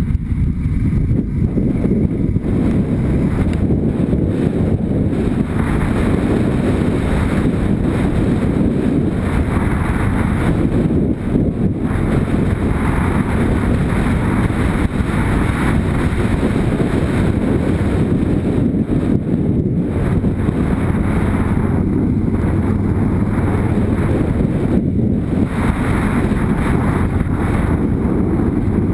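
Motorcycle engine running under way on a dirt track, heard under heavy wind buffeting on the bike-mounted camera's microphone: a loud, steady rumble with stretches of hiss that come and go.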